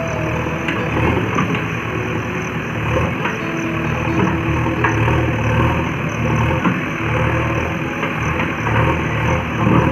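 Diesel engine of a JCB backhoe loader running and working, rising and falling in level as the backhoe arm shoves a large old oil-press log along the ground.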